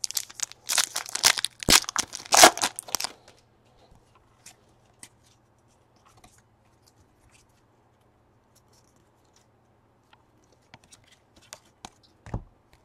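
A baseball card pack's wrapper torn open and crinkled for about three seconds, then cards handled quietly, with scattered light clicks and a soft tap near the end as they are flicked through and set down.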